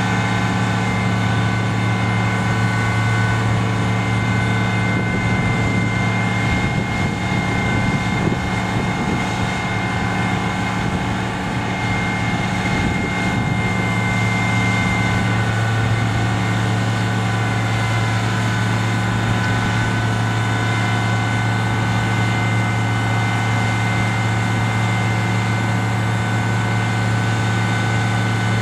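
Fire truck's engine and aerial-ladder hydraulics running steadily with a constant low drone and a steady high whine as the ladder boom lowers.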